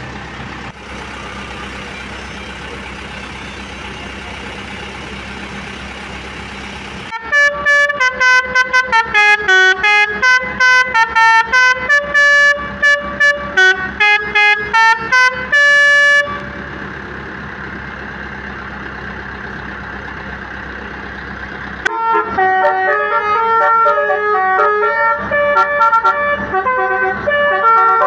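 Basuri telolet horn on a tour bus playing tunes. A quick run of short, separate horn notes stepping up and down starts about seven seconds in and lasts about nine seconds. A second tune starts about six seconds after the first ends and carries on.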